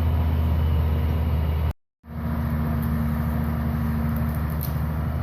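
Crane engine running at a steady speed, a constant low hum. The sound drops out completely for a moment about two seconds in, then carries on unchanged.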